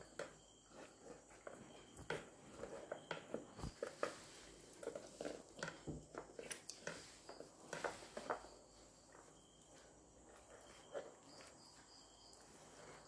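Hands handling a raw whole chicken on a wooden cutting board, pulling skin and pressing meat, in a run of small, irregular wet sounds and soft taps that die away after about eight seconds.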